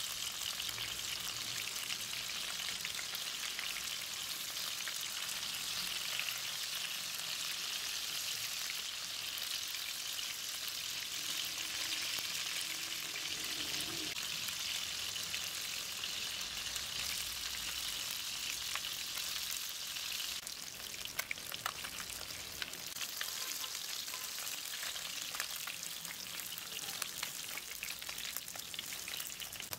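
Small masala-coated whole fish shallow-frying in hot oil: a steady sizzle that eases about two-thirds of the way through and turns into more scattered crackles and pops.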